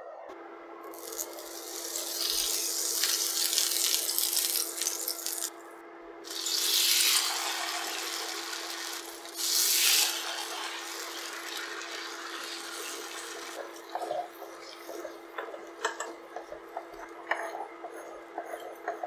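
Egg, cabbage and carrot mixture sizzling in hot oil on a flat griddle pan. The sizzle is loudest in three surges over the first ten seconds, then settles to a quieter sizzle with light scrapes and taps of a spatula shaping the mixture. A steady hum runs underneath.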